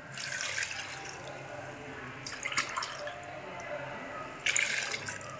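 Chicken stock poured from a glass into a steel karahi of chicken, splashing into the liquid already in the pan. It comes in three short spells of pouring.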